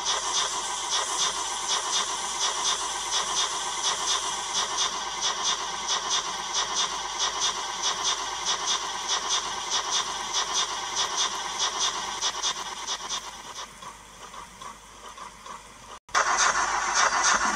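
Zimo sound decoder in a Hornby OO gauge LNER A4 model locomotive, playing steady steam-engine exhaust chuffs with hiss through its small speaker. The beats fade and grow quieter about thirteen seconds in. Near the end, after an abrupt cut, a louder hiss starts.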